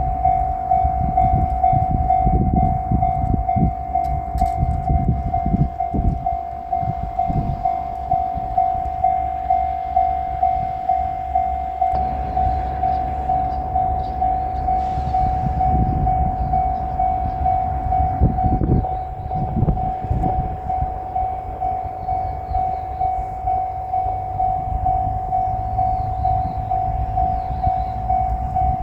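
Japanese railroad-crossing warning bell ringing with a steady, repeating tone over the low rumble of a JR Shikoku 1000-series diesel railcar passing the crossing. The rumble swells twice as the railcar goes by.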